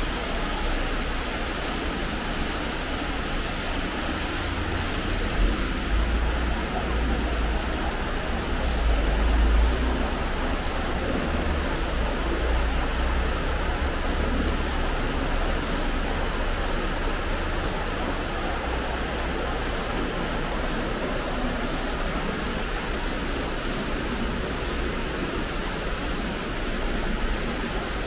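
Steady rain falling, a constant even hiss, with a low rumble underneath that swells about eight to ten seconds in.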